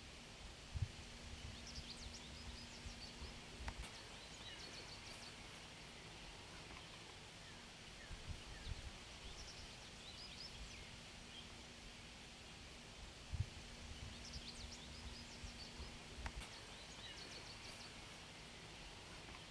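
Faint outdoor ambience of small birds chirping in scattered bursts over a steady hiss, with a couple of low thumps. The same stretch repeats about every twelve and a half seconds, like a looped nature-sound track.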